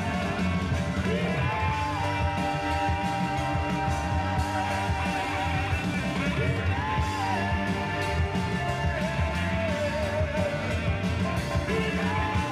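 A song with a singer and instruments playing from a 45 rpm record on a 1949 RCA record changer.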